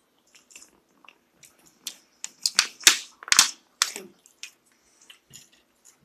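Crunching and crackling of eating close to the microphone: a run of sharp crunches that builds to its loudest about halfway through, with a couple of dull knocks among them.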